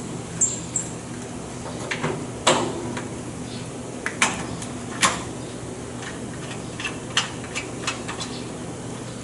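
Scattered sharp metallic clicks and knocks as a pneumatic cylinder and its mounting hardware are handled and fitted onto a training panel, over a steady low hum.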